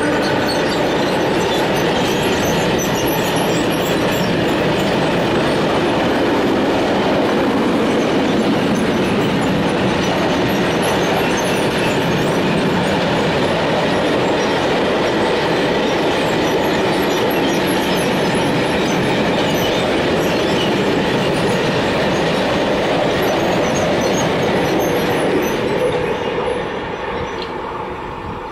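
Freight train rolling past at speed, a loud steady noise of wheels running on the rails. It begins to fade near the end as the train moves away.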